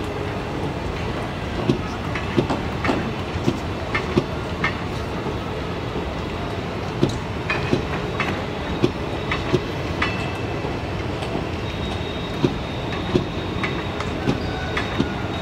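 Indian Railways passenger coaches rolling past at low speed, their wheels clacking irregularly over rail joints above a steady rumble. A thin, high wheel squeal rings briefly now and then, longest near the end.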